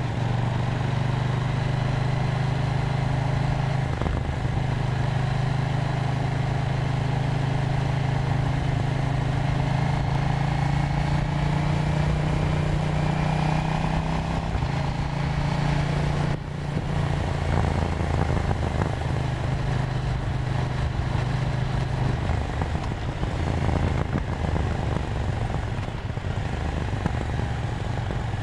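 KTM 790 Duke's parallel-twin engine running steadily while riding. About two thirds of the way through the note breaks off briefly, then carries on at a lower pitch.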